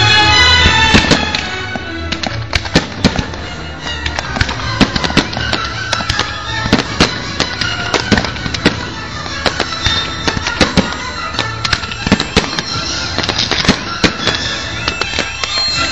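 Fireworks display: a dense, irregular run of sharp bangs and crackles from bursting shells, with music playing underneath.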